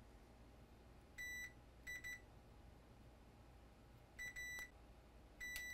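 Multimeter in continuity mode giving four short high beeps as its probes bridge 0-ohm surface-mount resistors one by one. Each beep shows that a resistor conducts, as a good one should.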